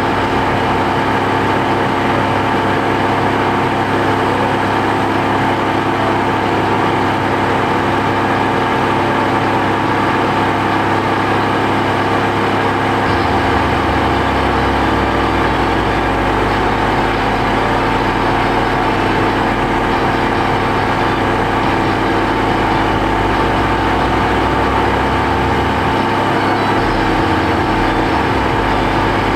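Subaru Pleo kei car's engine idling steadily, a constant whine riding over the engine note, as when the engine is run with the air conditioning on for a refrigerant top-up. The low rumble shifts about halfway through.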